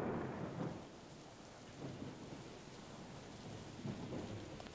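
Faint rain with low rumbles of thunder that swell at the start, about two seconds in and again about four seconds in.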